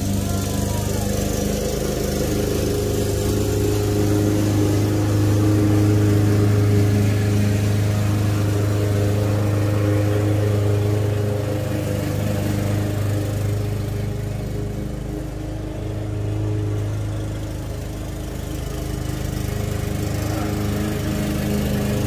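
Gas walk-behind lawn mower running steadily with an even engine hum. It grows quieter a little past the middle, then comes back up near the end.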